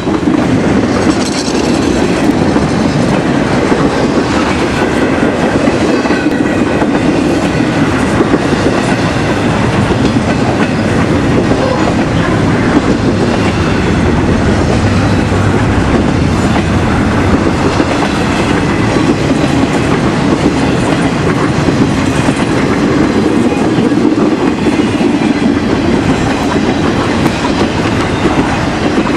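Railroad cars rolling steadily past close by, wheels clicking and clacking over the rail joints in a continuous loud rumble.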